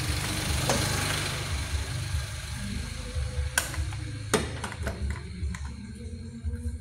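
Gloved hands working at the plastic air-intake duct and air-filter box of a Honda Brio's engine bay: a rustling scrape for the first few seconds, then a few sharp clicks and knocks of plastic parts.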